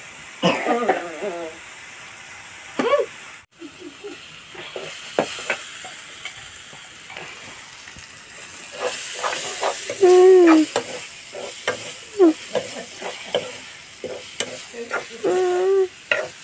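Onion and tomato masala frying in a wok over a wood fire, sizzling, while a steel ladle stirs and scrapes against the pan. The sizzle grows louder from about five seconds in.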